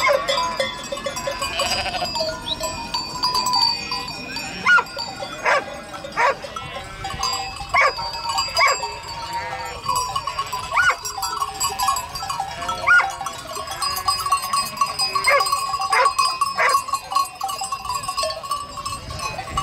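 Large flock of sheep bleating, many calls overlapping, with neck bells ringing and clanking among them.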